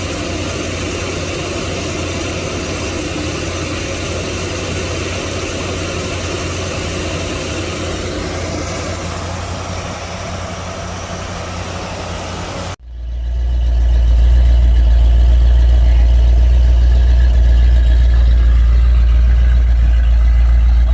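1976 Dodge D200 pickup's engine, freshly fitted with a new cap, rotor, wires and plugs, running steadily. About thirteen seconds in the sound cuts off abruptly and gives way to a much louder, deep steady rumble.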